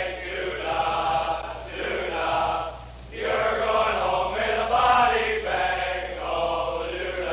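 A group of men singing a song together, voices in unison in phrases, with a short break about three seconds in.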